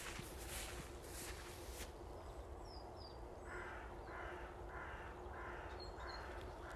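A crow cawing, a run of about six evenly spaced caws in the second half. Rustling footsteps in the first two seconds, and a couple of small-bird chirps.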